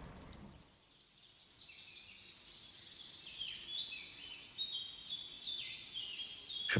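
Faint bird chirping: a run of short, high whistles, each falling in pitch, starting about two and a half seconds in over a quiet background hiss.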